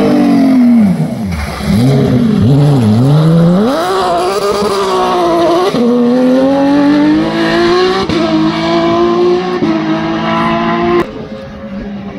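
Porsche 911 rally car's flat-six engine passing close: the revs dip and wobble low as it slows and changes down, then climb again through several upshifts, each rise cut by a sudden drop, and the sound falls away sharply near the end as the car gets farther off.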